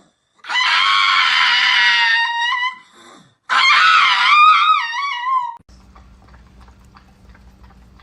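A dog giving two long, high-pitched screaming yowls, the second wavering up and down in pitch. Then only a faint steady hum.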